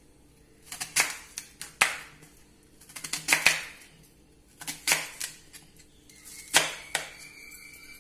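Kitchen knife slicing through peeled taro stalks onto a bamboo cutting board: about five cuts, each a short crunch ending in a sharp knock on the board, a second or so apart.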